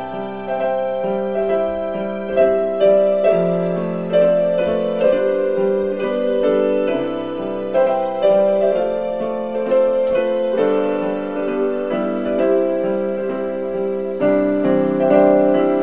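Piano music: a slow melody over held chords, new notes coming in about once a second.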